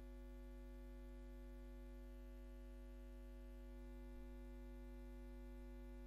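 Near silence: a steady electrical hum.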